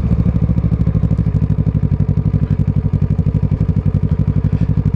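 Kawasaki ER6n's parallel-twin engine with a Scorpion aftermarket exhaust running steadily at low revs as the bike is ridden slowly over a rough dirt track.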